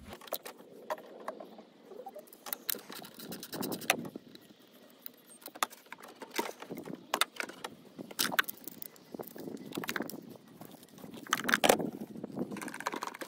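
Gloved hands working on the hoses and plastic air-intake pipework in a car's engine bay: irregular sharp clicks, rattles and knocks, with a louder cluster near the end.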